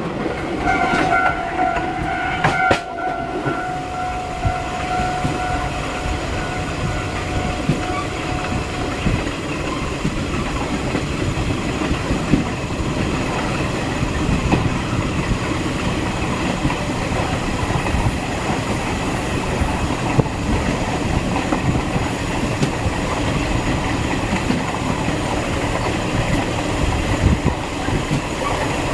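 Passenger train running on the rails with a steady rumble. Near the start a long, steady, horn-like tone sounds and fades out after about eight seconds.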